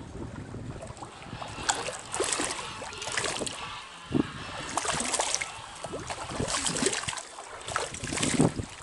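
Stream water splashing and trickling, with a string of irregular splashes over the steady run of the water.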